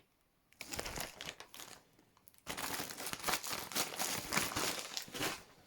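Crinkling and rustling as items in a small first aid kit are handled and rummaged through: a short rustle, then a longer run of steady crackling from about two and a half seconds in.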